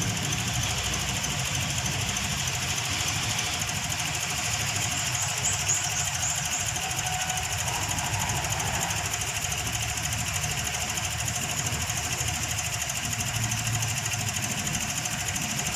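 Toyota Vios engine idling roughly with an uneven, pulsing shake, the rough idle it shows after its repaired ECU is refitted without the fault codes being cleared, until it has run long enough to relearn.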